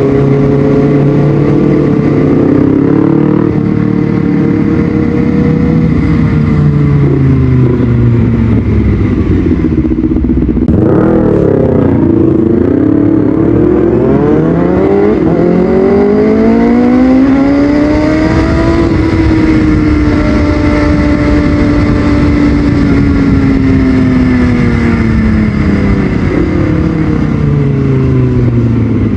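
Kawasaki ZX-6R's inline-four engine through a Yoshimura exhaust, ridden in city traffic, its pitch falling and rising as it slows and accelerates. There is a sharp drop and quick rise about ten seconds in, then a long climb and a slow fall later on.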